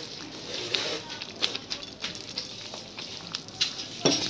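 Spinach gravy sizzling and bubbling in a frying pan as sweet corn kernels are tipped in, with scattered pattering ticks and a sharper knock near the end.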